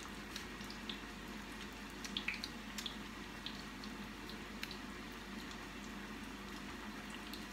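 Hot oil in a saucepan on the stove sizzling, with scattered small pops and crackles over a low steady hum, as a pumpkin fritter fries.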